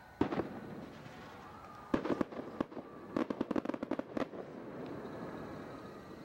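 Firecrackers going off: a single sharp bang near the start, a quick cluster of cracks about two seconds in, then a rapid string of pops, several a second, lasting just over a second.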